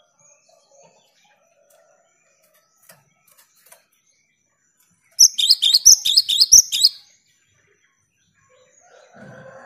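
Cinereous tit (gelatik batu) singing: one fast phrase of about ten repeated high notes, lasting under two seconds, about five seconds in.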